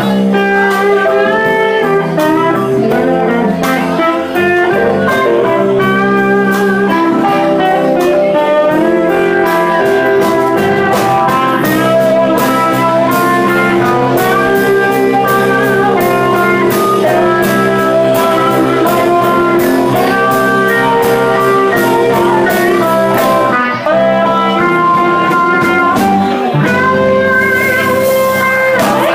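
Live band playing, with electric guitar to the fore over saxophone, keyboard and a steady beat.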